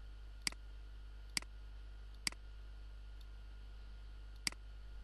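Computer mouse button clicking, four sharp clicks: three about a second apart, then one more about two seconds later. A faint low steady hum runs underneath.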